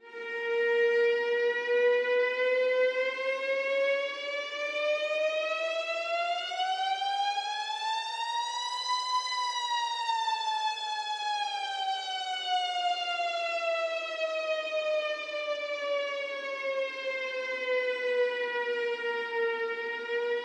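Civil-defence-style siren of a custom emergency alert alarm, starting suddenly and sounding one slow wail. It rises in pitch for about nine seconds, falls back over the next eleven, and starts to climb again near the end.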